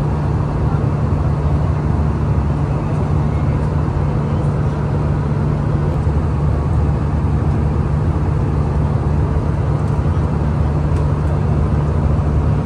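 Airbus A320 cabin noise in cruise: a steady low drone of engines and airflow.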